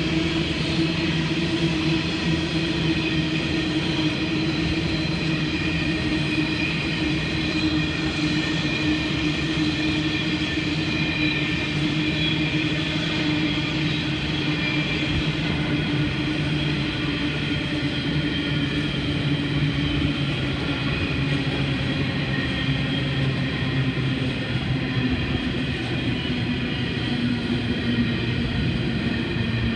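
Long freight train of hopper wagons rolling past: a continuous rumble of wheels on rail, with a steady hum whose pitch sinks slightly over time.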